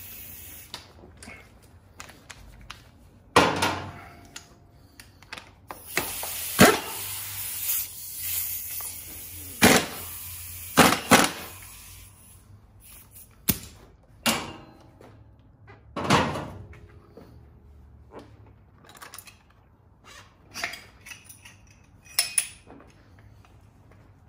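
Metal tools and motorcycle fork parts being handled on a workbench: a string of separate knocks and clinks, some ringing briefly, with a stretch of hiss from about six to nine seconds in.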